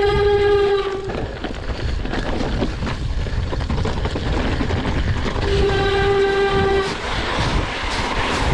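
Mountain bike descending a rough dirt and snow track at speed: a continuous rush of wind and tyre and frame rattle. Twice, at the start and about six seconds in, a steady horn-like tone sounds for about a second and a half at the same pitch.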